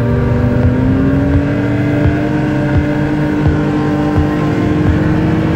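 Arctic Cat snowmobile engine running at trail speed, its pitch slowly rising, with a low thump about every 0.7 seconds.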